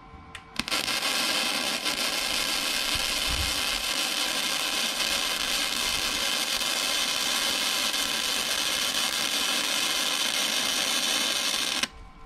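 Flux-core MIG welder arc crackling steadily while a bead is run to fill a V-groove in a broken steel loader fork. It starts about half a second in after two short strikes of the arc and cuts off abruptly near the end as the trigger is released.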